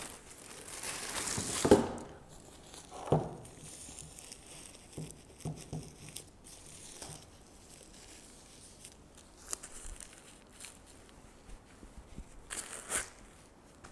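White wrapping paper rustling and crumpling as it is pulled out and handled while unpacking new sneakers. A long rustle fills the first two seconds, two sharp knocks follow, and a shorter rustle comes near the end.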